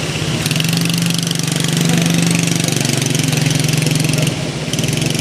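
Small quad bike's engine running steadily at low throttle as it is ridden, with a fast even pulsing; it eases off briefly about four seconds in.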